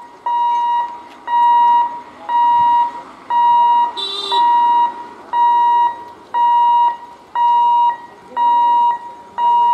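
Railway level-crossing warning buzzer sounding a steady beep at one pitch, about one half-second beep every second, the signal that the gate is closed for an approaching train. A short higher-pitched sound cuts in about four seconds in.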